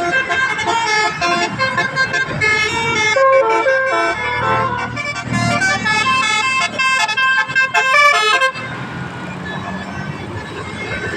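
Bus 'telolet' horns playing a fast run of musical notes, several overlapping, then cutting off suddenly about eight and a half seconds in, leaving a low bus engine rumble.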